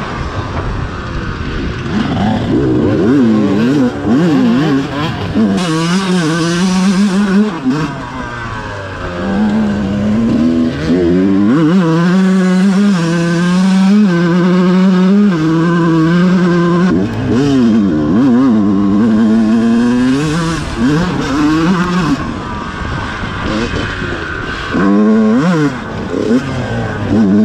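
Two-stroke Yamaha YZ125 dirt bike engine at race pace, revving hard and falling back again and again as the rider shifts and rolls off the throttle, its pitch climbing and dropping repeatedly.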